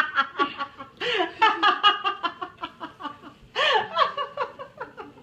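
A person laughing hard in rapid, pitched 'ha-ha' pulses, in three bouts with short breaks between.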